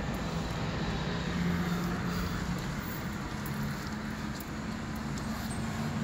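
Car engine and road noise heard from inside the cabin while driving, a steady hum.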